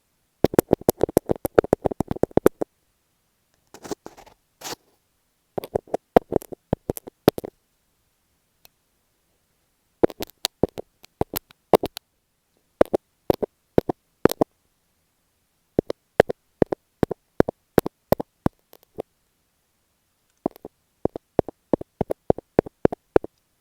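Quick bursts of tapping on masking tape stuck onto an earphone microphone, picked up right at the mic, in clusters of rapid taps with short silences between. There is a brief scratchy rustle on the tape about four seconds in.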